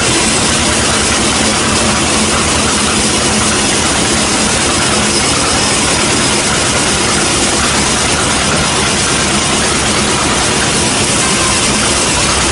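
Sawmill band saw running steadily: a loud, even machine noise with a low hum and no breaks.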